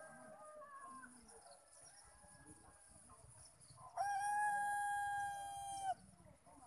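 Roosters crowing: a faint crow fading out at the start, then one loud, long crow of steady pitch about four seconds in, lasting about two seconds and cutting off sharply.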